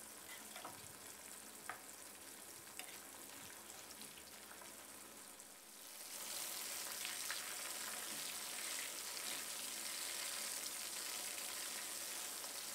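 Dusted chicken wings deep-frying in a wok of hot oil, a steady sizzle as they are stirred and turned, with a few light clicks. The sizzle grows louder about six seconds in.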